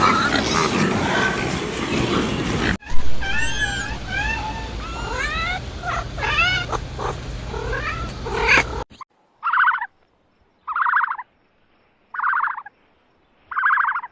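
Cat meowing: four separate meows about a second and a half apart in the second half, after an abrupt cut from a clip of many short, high, rising-and-falling calls over a steady low hum.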